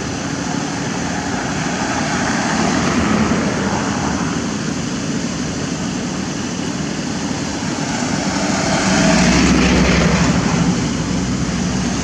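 Steady road-traffic noise, with a vehicle passing loudest about nine to ten seconds in.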